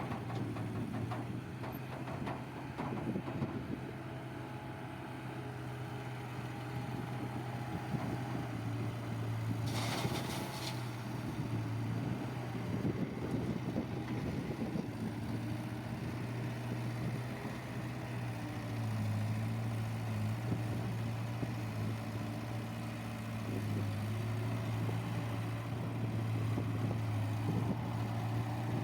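Heavy diesel engine running steadily at a low, even pitch, with a brief burst of hissing or clattering noise about ten seconds in.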